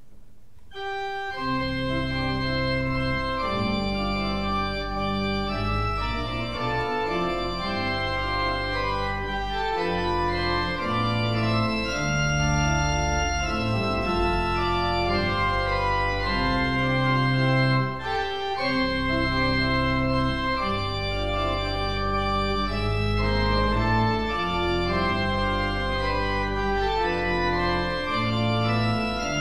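Church organ playing a postlude in sustained full chords on the manuals over a pedal bass line, coming in about a second in.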